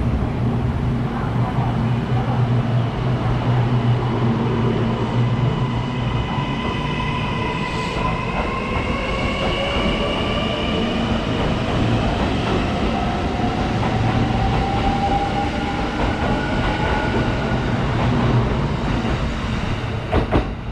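Kintetsu electric train at a station platform, running with a steady low rumble while its motor whine climbs slowly in pitch as it picks up speed, with a couple of short clicks near the end.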